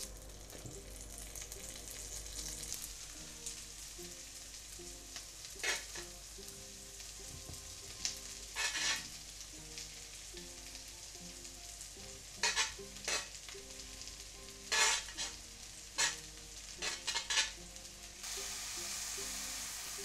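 Butter sizzling in a non-stick frying pan while sliced button mushrooms are scraped in off a cutting board and stirred with a spatula. Short scraping and clattering strokes sound over a steady frying hiss, and the hiss gets louder near the end.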